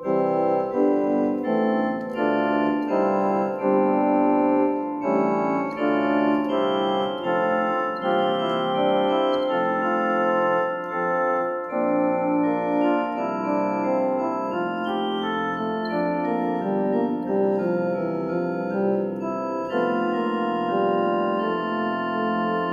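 Yamaha PSR-60 home keyboard being played: sustained organ-like chords with a melody on top, the notes changing every second or so, with its reverb switched on and no drum accompaniment.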